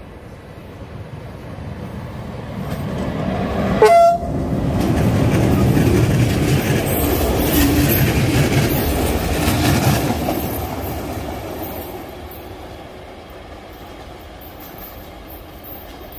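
A train passing: its running noise builds over the first few seconds, is loudest in the middle and fades away over the last few seconds. A short horn blast sounds just before the train is at its loudest, about four seconds in.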